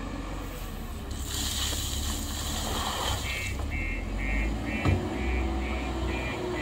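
JCB telehandler's diesel engine running as it tips a bucket of soil into a tipper truck, with a rushing hiss of earth pouring out during the first few seconds. From about halfway, a reversing alarm beeps about twice a second as the machine backs away, with a single knock near the five-second mark.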